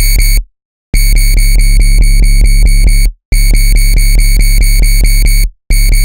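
Loud, distorted dubstep growl lead from an FM8 synthesizer patch, pulsing rapidly at about eight a second. It cuts out briefly three times: about half a second in, just past three seconds, and again near the end.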